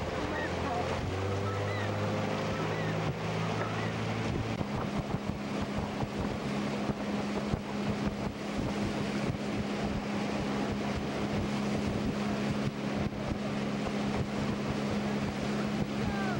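Motorboat engine running steadily as the boat moves along the river, its pitch shifting in the first few seconds and then holding, with wind buffeting the microphone.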